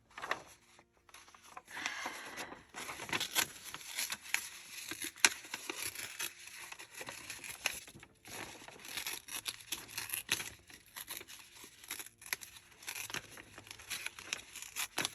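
Paper and card being handled: irregular rustling and crinkling with small taps and clicks.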